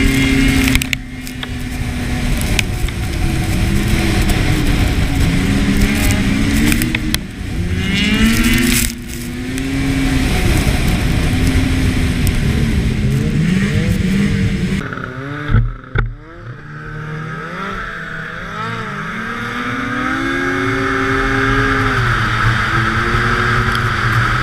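Snowmobile engine revving up and down repeatedly as the sled rides, over a constant rushing noise. About fifteen seconds in, the engine briefly drops away with a knock, then winds back up.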